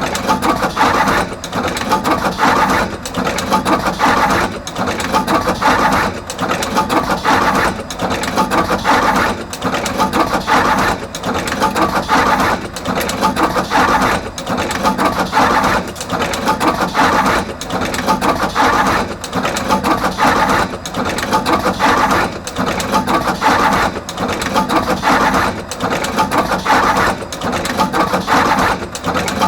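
Artos CR22 automatic wire machine cutting, stripping and crimping terminals onto both ends of wires, running in a steady repeating cycle with a brief lull a little more than every second and a half, a busy mechanical clatter in between.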